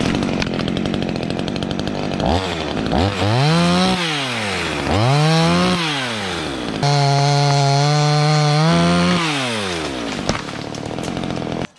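Small Proyama two-stroke climbing chainsaw running and cutting a limb. It revs up and down in several bursts, holds high revs for a couple of seconds, drops lower as it bites into the wood, then stops abruptly near the end.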